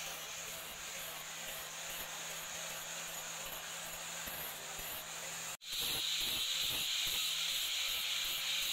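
Electric angle grinder with a flap disc running against the steel head of a small claw hammer, a steady hissing grind with a low motor hum under it. About two-thirds of the way through it cuts out for an instant and comes back louder.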